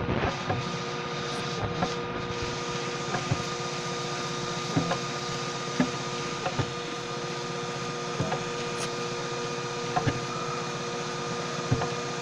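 Homemade 3D printer running a print: steady stepper-motor whine with scattered sharp clicks and knocks.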